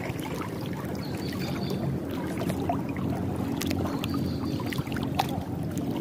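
A motor engine running steadily with a low, even hum, with a few faint clicks over it.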